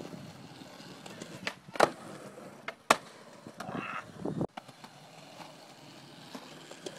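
Skateboard wheels rolling over concrete, with two loud sharp clacks of the board striking the ground about two and three seconds in.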